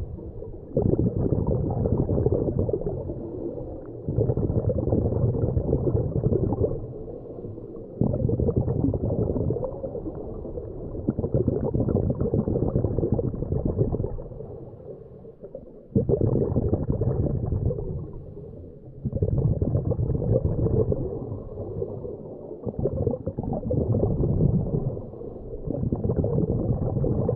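Muffled underwater bubbling and rumbling picked up by an underwater camera, rising and falling in surges every few seconds.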